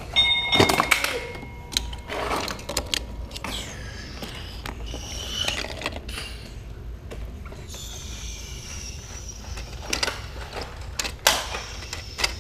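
Plastic clicks and clatter of a die-cast toy car being handled and set on the lift of a Hot Wheels Ultimate Garage playset, with a brief high tone near the start and a few sharper clicks near the end.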